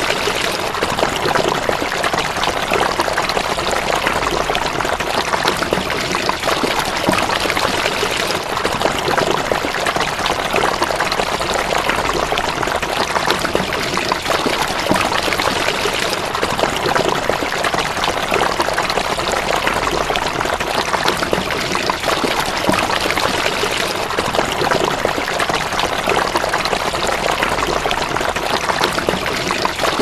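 Running water flowing in a steady, even rush.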